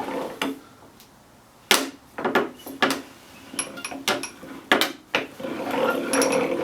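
Uneven, separate clicks and knocks, about seven of them, from the hand-cranked Champion Blower & Forge No. 101 post drill as it is worked.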